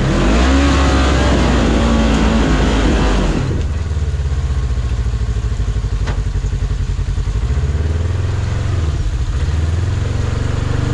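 Polaris RZR XP1000's parallel-twin engine revving for about three and a half seconds, then dropping back to a lower, steady run with a fast, even pulse.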